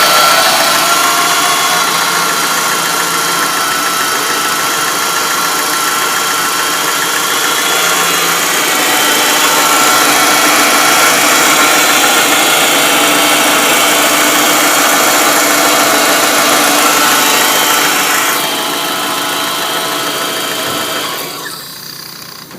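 MG ZR engine running with a strange noise: a set of steady whining tones sits over the engine sound, a noise the owner has been told could be the alternator. The sound dies away near the end.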